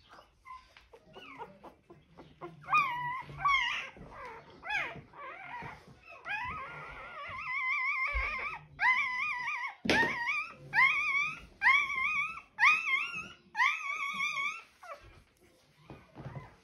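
Four-day-old German Shorthaired Pointer puppy crying: a quick series of high squeals, each rising in pitch, with one longer drawn-out cry midway. A few knocks from handling come with it.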